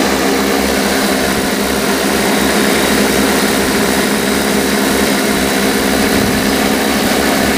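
Large agricultural spraying multirotor drone with 75 cm (30-inch) propellers hovering: a loud, steady, many-toned propeller hum.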